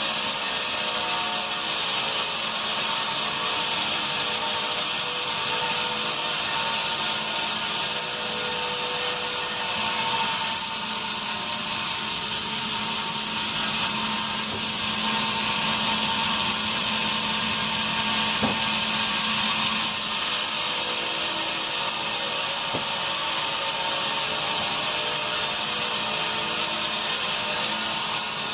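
Band sawmill running steadily while its blade saws through pine: a constant machine hum under a dense high hiss.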